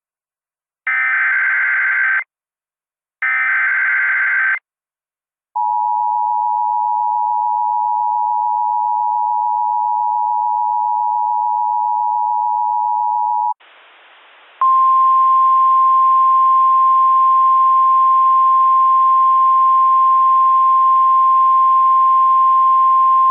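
Emergency Alert System tones. Two more short, harsh digital header bursts come first, a second apart. Then the two-tone attention signal sounds steadily for about eight seconds, and after a second of faint static a single steady weather-radio alert tone plays over a hiss.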